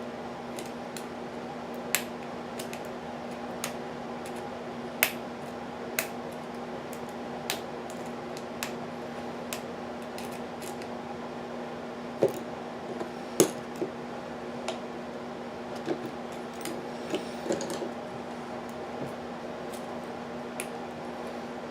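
Lock pick and tension wrench working in the keyway of a Regal Security six-pin padlock: irregular sharp metallic clicks and scrapes, with pauses between them, over a steady background hum.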